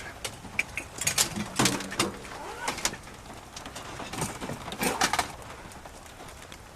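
Scattered knocks and clinks of metal scrap and junk being handled and sorted, about eight in all.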